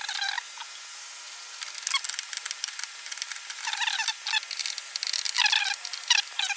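Screws being driven with a screwdriver into the cooler's plastic mounting-bracket tabs, squeaking in short bunches of chirps every second or so.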